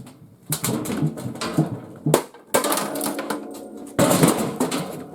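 Plastic housing of a garage door opener being pried and forced off, with grinding, creaking and several sharp cracks and clatters as it is worked loose.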